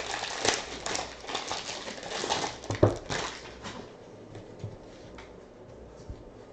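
Foil trading-card packs and a cardboard box crinkling and rustling as the box is opened and its packs taken out, with a sharp snap about three seconds in. After that it is quieter, with a few soft clicks as a stack of cards is handled.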